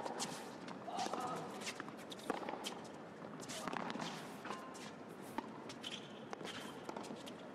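Tennis rally in an indoor arena: several sharp racket strikes on the ball about a second apart, with sneakers squeaking and scuffing on the hard court and steady background crowd noise.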